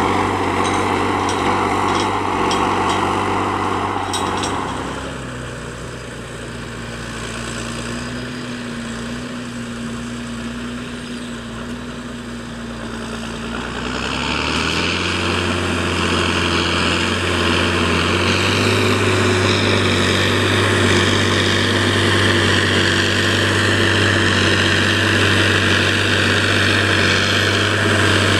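Massey Ferguson 6480 tractor's six-cylinder diesel engine running steadily under heavy load while pulling a subsoiler through the ground. A few seconds in it drops quieter. About halfway through it rises in pitch and loudness, then holds loud to the end.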